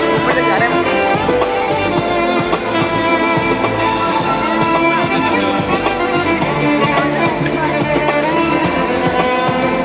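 Continuous loud music with sustained instrumental tones: the soundtrack of a fountain show.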